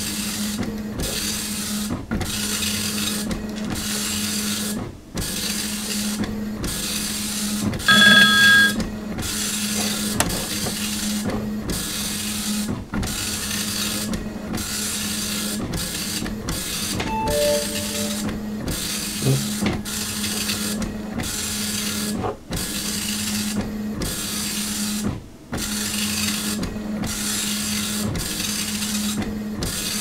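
Dot-matrix printer printing line after line: rasping passes of the print head, each about a second long, with short breaks between them over a steady hum. A short, loud high electronic beep sounds about a quarter of the way in, and a few soft falling tones come a little past the middle.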